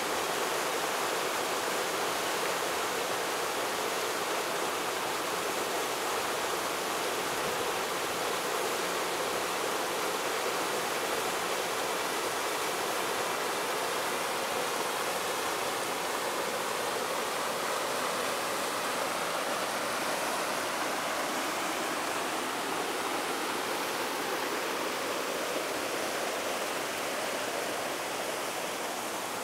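Steady rushing of river water pouring over a low weir, easing slightly near the end.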